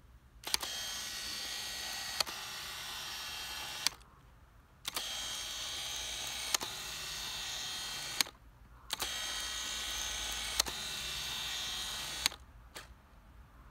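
Autofocus drive racking a Nikon AF Micro-Nikkor 60mm f/2.8 AF-D lens's focus end to end through its screw-drive coupling. The lens's AF drive has been freshly flushed. Three steady whirring runs of about three seconds each, with a sharp click as each run starts, another partway through, and one as it stops, and a short pause between runs.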